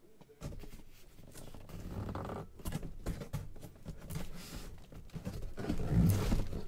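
Hands opening the top of a large cardboard box: rustling, scraping and tearing of cardboard and wrapping, growing louder near the end.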